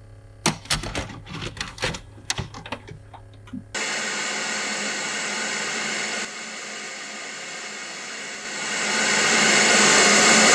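A run of clicks and knocks as a hand presses buttons on a Sony CRT television, then the set's static hiss from an untuned channel starts about four seconds in, drops a little, and swells louder near the end.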